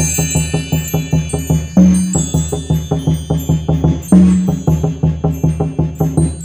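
Percussion music: a fast, even drum pattern of about five strokes a second, with a deeper accented drum hit twice, under the fading ring of chimes.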